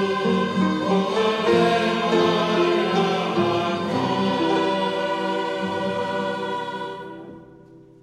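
Mixed choir of men and women singing, ending the song on a held final chord that fades out near the end.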